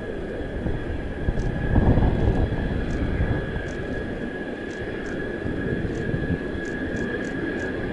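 F-2 fighter's General Electric F110 turbofan running at taxi power: a steady high whine over a rumble, with the rumble swelling louder about two seconds in.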